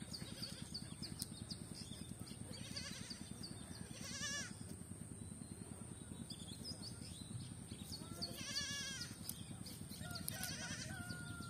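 Two short wavering animal bleats, about four and eight and a half seconds in, over small high chirps and a steady high-pitched whine.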